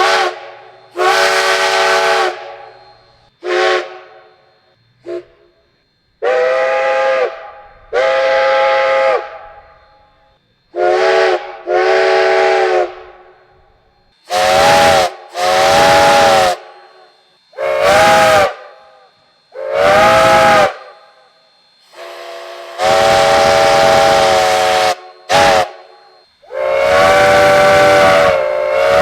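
Steam locomotive chime whistle blown in a series of long and short blasts, each a chord of several tones over the hiss of steam. The chord changes about halfway through, as if a different whistle takes over.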